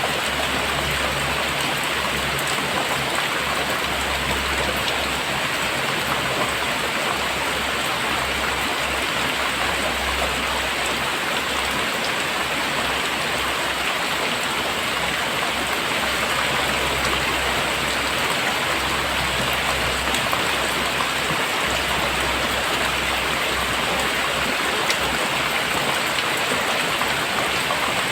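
Very heavy rain pouring down, a dense steady hiss of countless drops, with a low rumble coming and going underneath.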